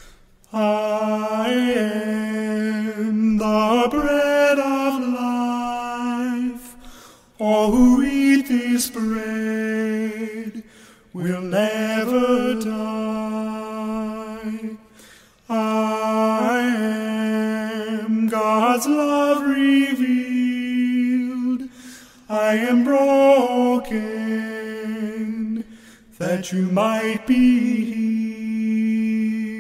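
Vocal quartet singing a cappella in phrases of several seconds, with long held chords and short breaks between phrases.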